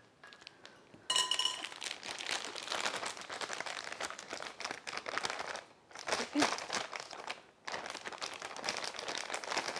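Clear disposable plastic piping bag with whipped cream inside crinkling as it is handled and worked open by hand. It stops briefly twice, near the middle and a little later.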